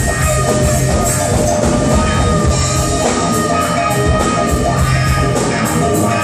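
Live rock band playing loud, with electric guitar and drums, recorded from the audience.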